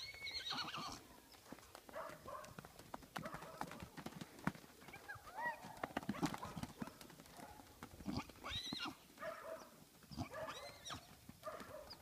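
Hoofbeats of a young mustang filly galloping on soft arena dirt, with several high whinnies that rise and fall in pitch.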